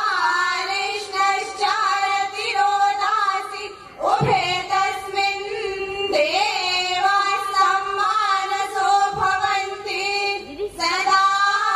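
Young women's voices singing a song together, holding long notes, with a short break about four seconds in.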